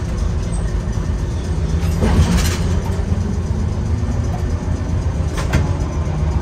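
Streetcar running along its track, heard from the driver's cab: a steady low rumble, with a short hiss about two seconds in and a couple of sharp clicks near the end.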